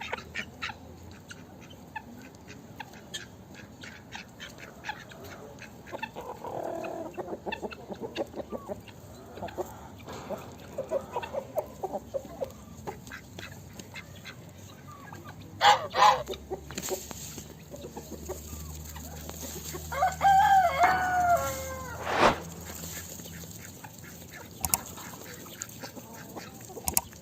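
Chickens clucking, with many short clucks and clicks. About halfway through come two loud short calls, and a few seconds later a longer drawn-out call.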